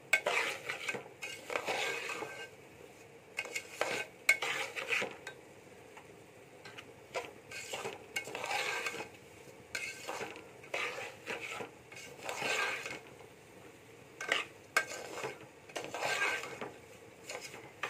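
Steel spoon stirring and scraping semolina as it fries in a steel pot, in irregular strokes with sharp clinks of spoon against the pot.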